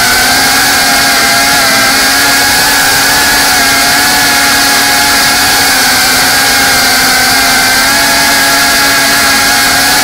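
Small FPV cinewhoop drone's brushless motors and ducted propellers hovering: a steady, loud whine that holds a nearly constant pitch with slight wavers.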